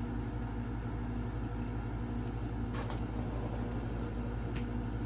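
Steady low mechanical hum, even in level throughout, with a couple of faint light ticks.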